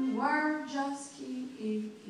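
A woman singing to her own ukulele: a sung note that bends upward near the start, then a softer stretch with quiet ukulele notes underneath.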